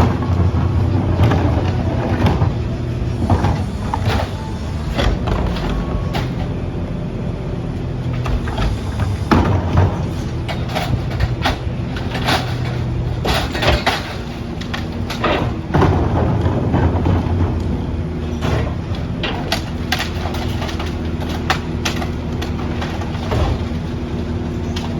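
CNG Mack LR garbage truck with a McNeilus split rear-loader body, its engine running steadily while many sharp knocks and bangs come through, thickest in the middle stretch.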